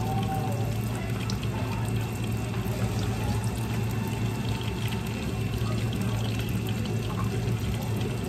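Lumpia deep-frying in a pot of hot oil: a steady sizzle, with a few faint light clicks, over a steady low hum.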